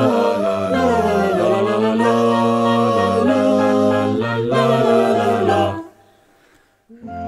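Mixed a cappella choir of women's and men's voices singing a slow, sustained harmony with some gliding pitches. The final chord cuts off about six seconds in.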